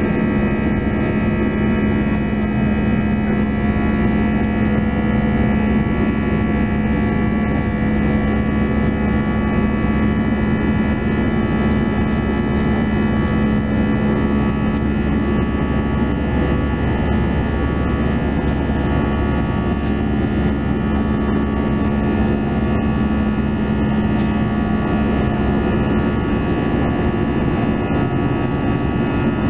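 Cabin noise of an Airbus A320-214 in the climb: its CFM56 turbofan engines running at climb power, heard from inside the cabin as a steady drone with a strong low hum and several steady higher tones over it.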